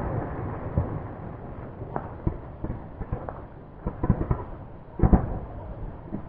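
Distant fireworks display: scattered bangs and crackling pops over a low rumble, a cluster about four seconds in and the sharpest pair about five seconds in.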